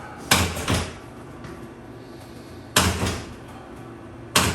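Chiropractic thrusts adjusting the ribs, heard as four sharp knocks against the treatment table: two in quick succession, then one, then another near the end.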